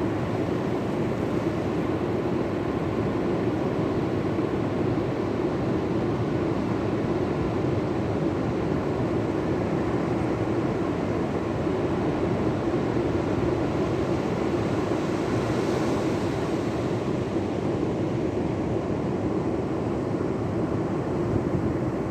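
Rough sea at high tide: surf breaking and washing in a steady, unbroken rush of noise.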